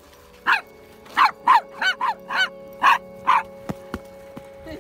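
A dog barking in a quick series of about seven sharp barks over three seconds, then falling quiet.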